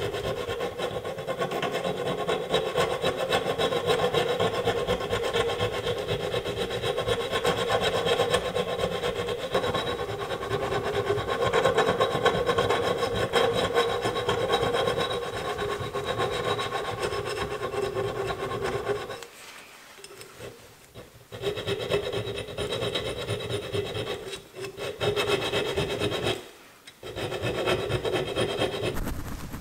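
Small flat steel file rasping back and forth over the cutting lip of an old 1-inch auger bit, sharpening it. The filing runs steadily, stops for about two seconds around two-thirds through, resumes, and pauses briefly again near the end.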